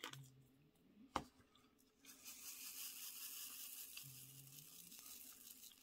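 A couple of light clicks, then resin diamond-painting drills being shaken back and forth in a plastic drill tray from about two seconds in: a faint, steady, high rattling hiss as the drills slide and settle.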